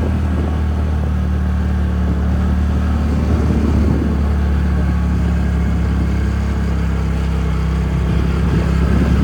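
TVS Ntorq 125 scooter's single-cylinder engine running steadily while riding, with steady wind and road noise.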